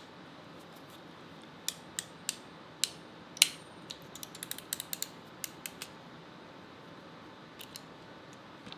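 Sharp clicks of a hand crimping tool crimping a lug onto a power cable: a few spaced clicks, then a quick run of them, then two faint ones near the end.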